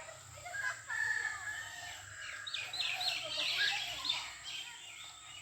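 Chickens calling: a long held call about a second in, then a run of short, high calls.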